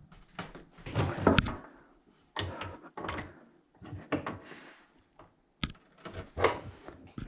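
Irregular knocks and clatters of objects being handled, the loudest about a second in.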